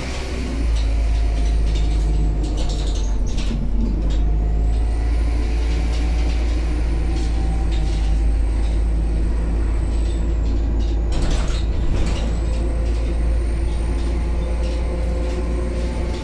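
Dennis Dart single-deck bus's diesel engine running under way, heard from inside the passenger saloon as a deep, steady rumble that gets louder about a second in. Short interior rattles come through, with a brief loud burst of noise about eleven seconds in.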